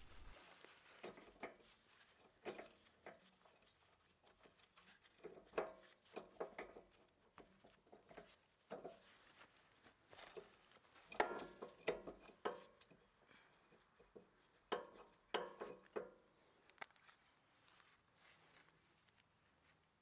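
Faint, scattered clicks and short scrapes of a wrench and metal parts being handled while the mounting bolts of a small hydraulic gear pump are worked loose, in a few short clusters.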